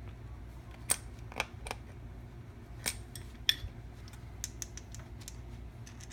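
Scattered sharp clicks and taps of small hand tools on a guitar effects pedal as a part is tightened down, about eight louder ticks over a few seconds, over a steady low hum.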